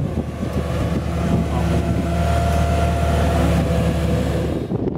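Mobile crane's diesel engine and hydraulics running steadily under load as the telescopic boom moves, a steady low hum with a whine above it; it cuts off abruptly near the end.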